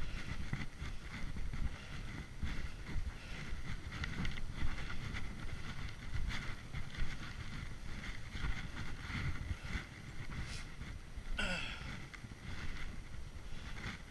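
Skis running over snow: a steady rough hiss and scrape of the skis, with wind buffeting the microphone. About eleven seconds in, a brief sharper screech cuts through.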